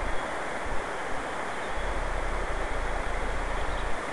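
Steady rushing hiss of a flowing river, with wind rumbling on the microphone off and on.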